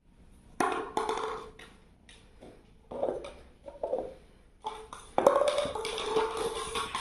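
Empty paper cups knocked over by a cat, tapping and clattering on a hard marble floor. There are a few separate knocks early on and a denser run of clatter from about five seconds in.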